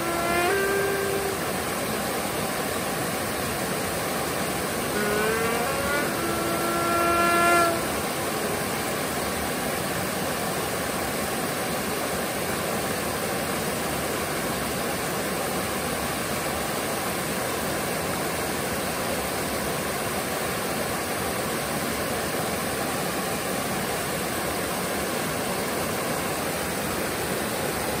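Flameworked borosilicate glass trumpet with a brass-like tone, playing over the steady rush of a waterfall. One note ends about a second in; about five seconds in a note rises and settles into a held note that stops about eight seconds in. After that only the waterfall's steady rush is heard.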